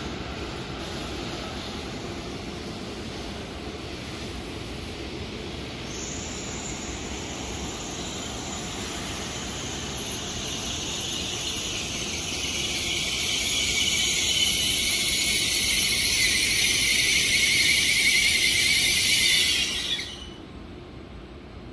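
N700S Shinkansen train braking to a stop: a high-pitched brake squeal over the low rumble of the slowing train. The squeal comes in about six seconds in, builds to its loudest in the last third, and cuts off abruptly near the end.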